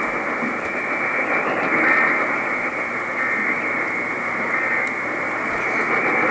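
Weather radio receiver giving a steady, muffled static hiss with no voice on the channel: dead air after a broadcast warning message has ended.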